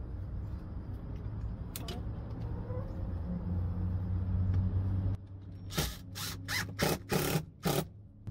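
A steady low hum for about five seconds, then a cordless drill/driver run in about five short bursts, driving screws to fasten the door's mounting board to the wooden coop wall.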